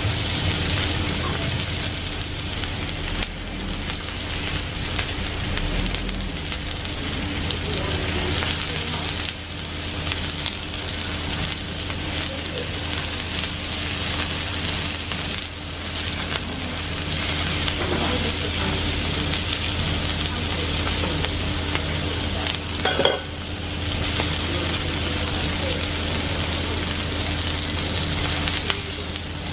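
Kopchang (beef small intestine) sizzling and crackling on a tabletop barbecue grill, over a steady low hum, with one brief louder knock about three quarters of the way through.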